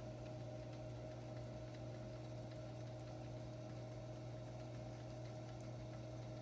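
Electric pottery wheel's motor running at steady speed: a steady low hum with a fainter higher tone above it.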